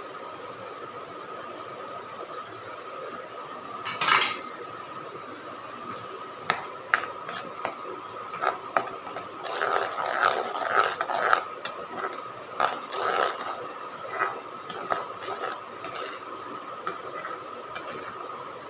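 A metal spoon clinking and scraping against a cooking pan in a run of quick knocks while stirring a gravy, after a short rush of noise about four seconds in. A steady high hum runs underneath.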